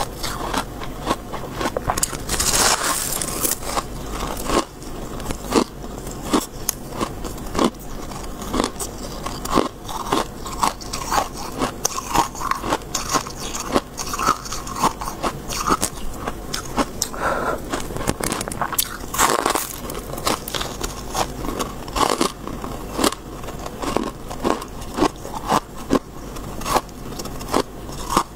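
Powdery freezer frost being bitten and chewed close to a clip-on microphone: a steady run of sharp crunches, a few every second.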